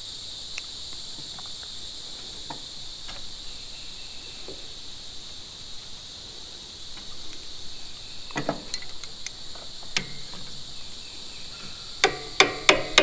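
Insects chirring steadily in the background, with scattered small clicks and knocks from hand work on the fuel line. Near the end comes a quick run of sharper taps and clicks.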